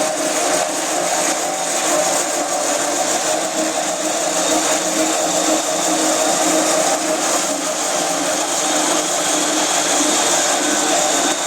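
Concrete floor grinder running steadily as it grinds a concrete surface: a continuous motor hum under an even, high grinding hiss.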